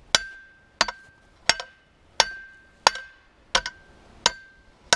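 Hand hammer striking a hot steel rod being forged straight, about eight blows at a steady pace of roughly one and a half per second, each with a short metallic ring.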